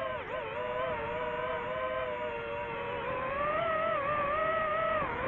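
FPV quadcopter's brushless motors and propellers whining, the pitch following the throttle: a quick dip just after the start, a climb about two-thirds through, and another dip at the end.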